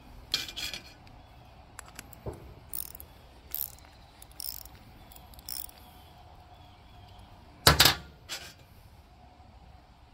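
Small metal clicks and clinks of a carburetor being put back together by hand: the float bowl fitted back on and its nut run on with a socket. Scattered single clicks, with one louder clank about three-quarters of the way through.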